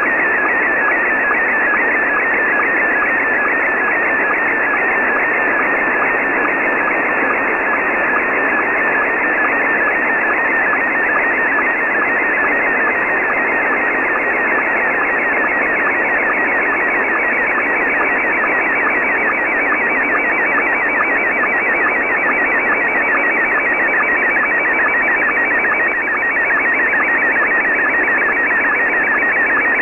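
Very weak, noisy slow-scan television (SSTV) picture signal from a shortwave pirate station, heard in lower sideband through an Icom IC-R9500 receiver. It is a fast, evenly repeating warbling tone buried in steady static, and it grows clearer about halfway through as the image is sent line by line.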